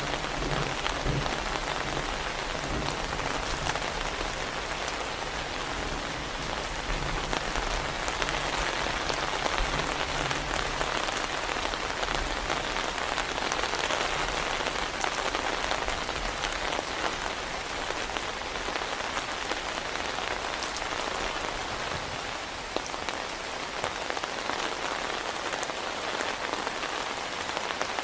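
Heavy rain falling steadily. A low rumble dies away over the first ten seconds or so.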